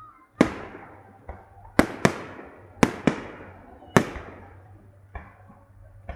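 Fireworks salute: aerial shells bursting in an irregular series of about six loud bangs, each trailing off in an echo, with a fainter bang near the end.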